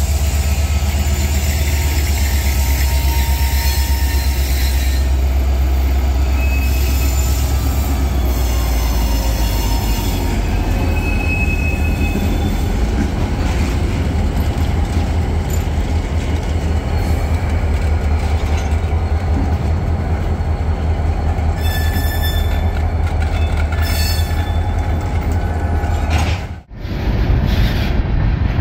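Canadian National diesel freight locomotives rumbling past at close range, then freight cars rolling by. The wheels squeal now and then and clack on the rails. The low locomotive rumble is strongest in the first half.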